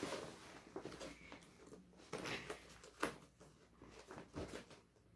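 Faint rustling and soft knocks of a book being pushed into a fabric backpack pocket, with one sharper click about three seconds in.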